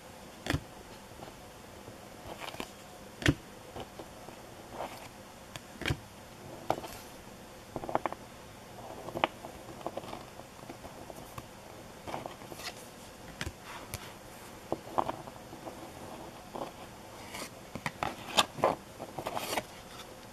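Topps baseball cards being handled and flipped one by one in the hands: irregular soft clicks and brief slides of card stock against card stock, coming more thickly near the end.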